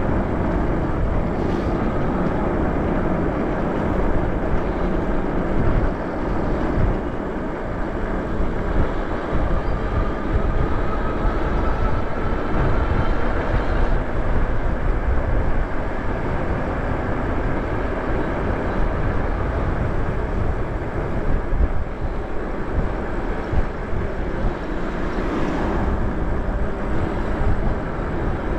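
Wind buffeting the microphone and tyre noise from an e-bike (a Lyric Graffiti) riding along a paved street, a steady rushing with a faint whine rising in pitch around the middle.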